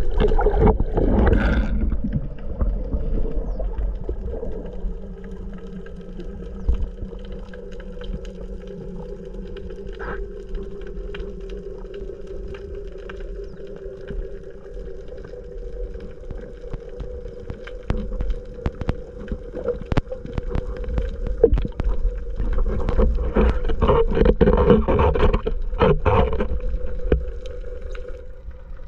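Underwater sound: a boat's engine hums steadily through the water, over a low rush of water past the microphone and scattered crackling clicks. A few louder swishes of water come near the end.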